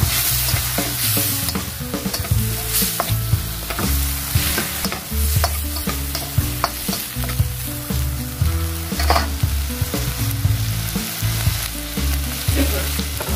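Onion sizzling and frying in a hot pan with soy sauce, wine and vinegar as it is stirred. The utensil clicks against the pan now and then.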